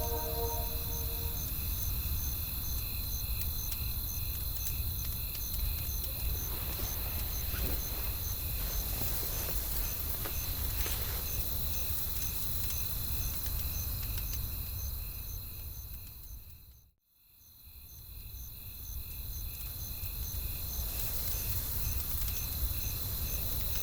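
Night ambience of crickets chirping in a steady, even pulse over a low wind rumble, with faint scattered crackles. About two-thirds of the way through, everything fades briefly to silence and then swells back.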